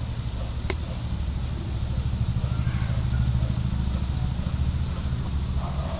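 Cat purring steadily as it suckles from a dog: a low, fast-pulsing rumble, with a single click near the start.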